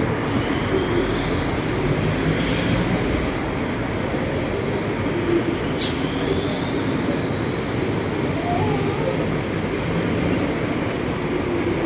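Steady wash of heavy road traffic on a multi-lane road below a footbridge. A faint whine rises and falls a couple of seconds in, and there is a single sharp tick about halfway through.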